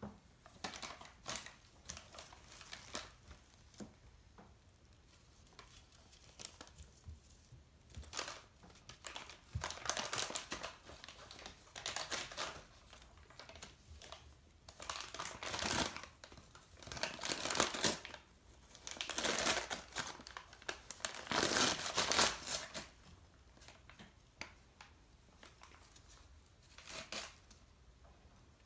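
A domestic cat tearing and crumpling a newspaper: irregular bursts of paper rustling and ripping, heaviest in the middle and tailing off near the end.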